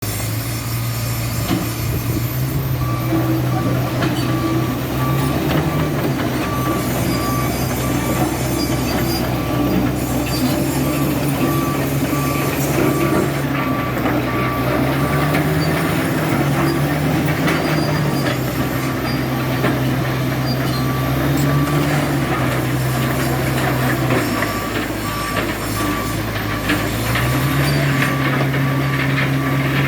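Komatsu bulldozer's diesel engine running, its pitch rising and falling as the load changes, with a travel alarm beeping steadily from about three seconds in until just before the end.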